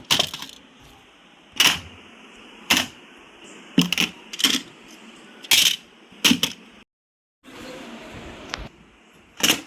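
Toys being set down and dropped into a storage drawer: a series of separate knocks and clatters, roughly one every second.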